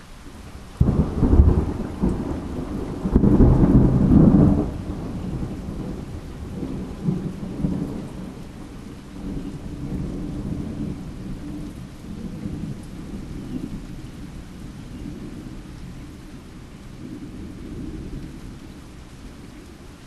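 A thunderclap breaks suddenly about a second in and swells again around three to four seconds. It then rolls on as a low rumble that slowly dies away over steady falling rain.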